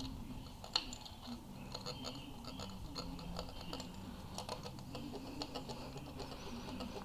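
Long feeler gauge blade being slid in and out under a rocker arm on a Honda B18C1 engine: faint metallic scraping and light clicks, with one sharper click under a second in. The drag heard and felt on the blade is the check of the valve lash clearance.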